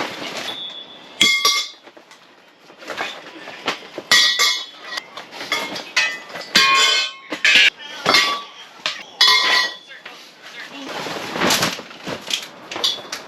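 Repeated metal clanks and clinks at irregular intervals, several of them ringing briefly after the hit, as metal gear is handled.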